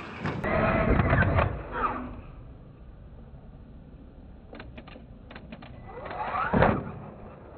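Radio-controlled monster truck driving and jumping: its motor whines up and down in the first two seconds, a few sharp clicks and knocks come near the middle, and a rising whine ends in a loud knock a little after six seconds.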